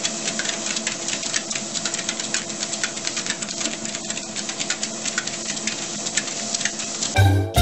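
ProForm treadmill running with two corgi-type dogs trotting on its belt: a steady motor hum with quick, uneven ticking of paws and claws. It cuts off about seven seconds in.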